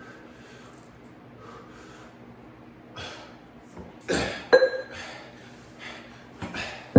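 A man breathing hard during chest-fly reps: forceful puffing exhales that start about three seconds in and come louder and closer together toward the end.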